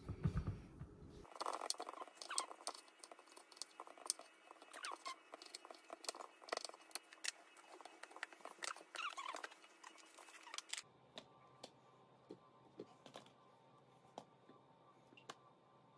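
Faint, irregular clicks, taps and short scrapes of small objects being handled, with the background changing abruptly about a second in and again near eleven seconds.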